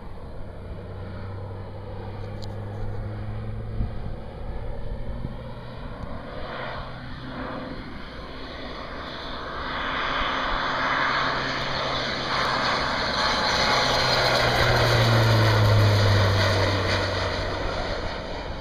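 Thrush 510 turboprop crop-dusting plane making a low pass: a distant engine drone that grows steadily louder from about halfway through as the plane comes in low, loudest near the end, then just beginning to fade as it passes.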